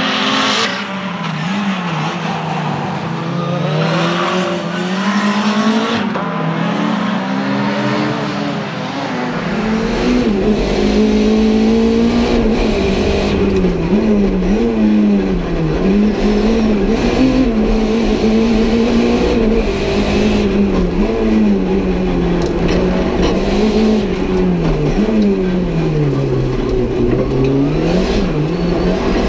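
Renault 5 GT Turbo race car's tuned 1.4-litre turbocharged four-cylinder engine driven hard, its revs rising and falling over and over. The first part is heard from trackside as the car comes through. About a third of the way in, the sound switches to inside the cabin, with a low rumble under the engine note.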